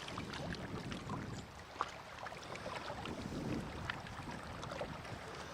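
Outdoor shoreline ambience: wind buffeting the microphone and water lapping against a rocky bank, with a few faint clicks and one sharper click about two seconds in.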